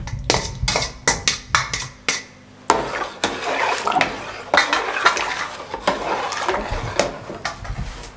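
A metal ladle clinking rapidly against a steel colander as canned fruit cocktail is knocked out of it, for about the first two and a half seconds. Then the thick, creamy dessert mixture sloshes in a large aluminium pot as it is stirred with the ladle.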